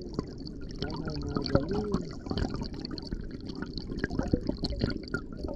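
Water heard through a submerged camera in shallow sea water: a steady low rumble of moving water with many small clicks and crackles.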